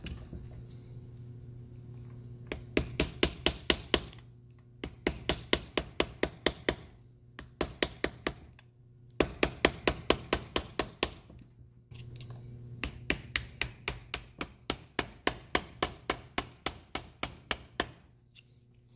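Hammer tapping a punch into the stuck shifter detent sleeve bushing of a ZF S5D 320Z gearbox: quick sharp strikes, about five a second, in runs of a few seconds with short pauses. The taps are collapsing the sleeve down its slit to loosen it in the bore.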